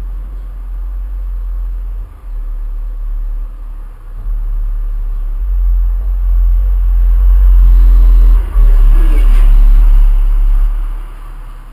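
A loud, low rumble that builds over several seconds, peaks in the second half, and fades away near the end.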